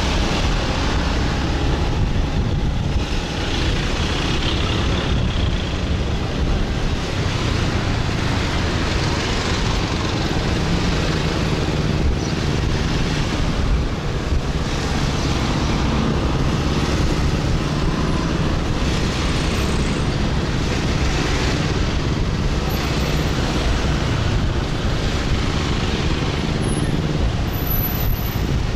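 Motorbike taxi's engine running while riding through city traffic, heard from the pillion seat, with steady road and traffic noise around it.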